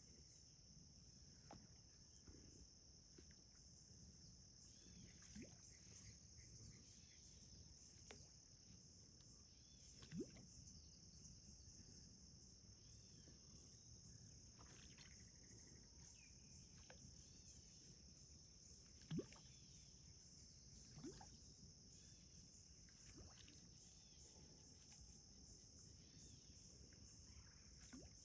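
Faint, steady chorus of night insects, high-pitched and unbroken, with a few brief rising chirps over it, the loudest about a third and two-thirds of the way through.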